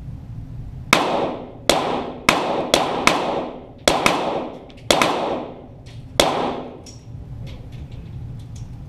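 .22 Walther GSP target pistols firing about nine shots at an irregular pace over some five seconds. Each is a sharp crack with a reverberating tail, picked up from beside the targets down range.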